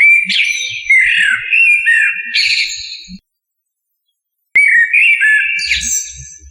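Common blackbird (Turdus merula) singing: two loud phrases of fluty, warbling whistles that glide up and down, each ending in a higher, squeaky twitter, with a pause of about a second and a half between them.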